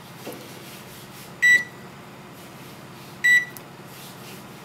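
Electronic key beeps from a KitchenAid Superba oven's control panel as its keypad is pressed to set a 7-minute timer: two short, high beeps, about 1.5 s and 3.3 s in, over a faint low hum.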